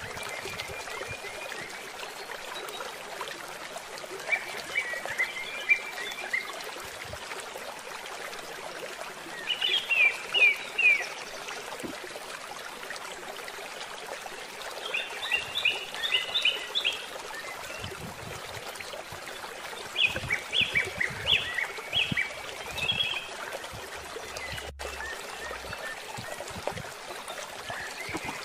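Bird song: phrases of short, quick falling notes repeated about every five seconds, over a steady rushing background noise.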